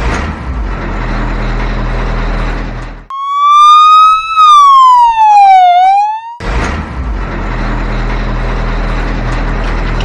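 Edited-in sound effects. A steady engine-like rumble with a low hum cuts off abruptly about three seconds in. A loud whistle- or siren-like tone takes over, slowly rising, then falling, then starting to rise again. The rumble cuts back in about six seconds in.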